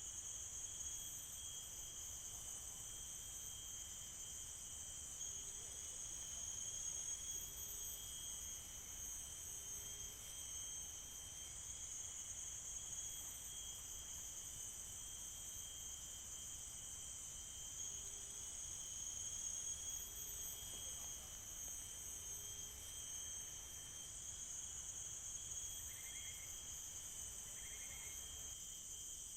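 Steady chorus of forest insects, shrill and unbroken in several high-pitched bands, with a few faint short low notes now and then.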